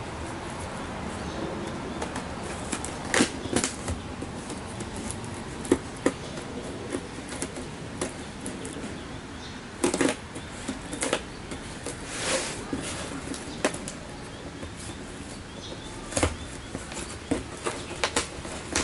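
Scissors cutting through the packing tape on a cardboard box, with the cardboard flaps rustling and scraping as they are worked loose: irregular snips and clicks, and a longer scrape about twelve seconds in.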